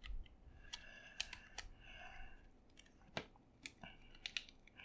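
Casing of an iRiver iHP-120 mp3 player being pressed and fitted shut by hand over a new battery: faint rubbing, with a handful of sharp small clicks at irregular moments.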